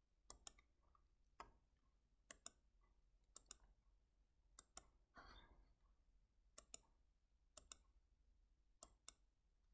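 Faint computer mouse clicks, about eight of them at roughly one-second intervals, most heard as a quick double tick of button press and release, with near silence between.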